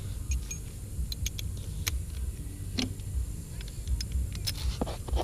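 Scattered, irregular light metallic clicks and clinks of hand tools and loose parts during engine disassembly, over a steady low rumble.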